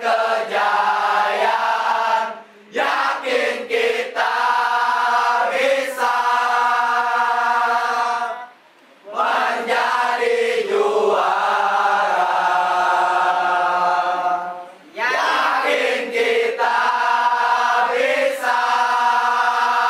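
A group of young men singing a football supporters' chant together in unison, unaccompanied. The singing breaks off briefly three times between phrases.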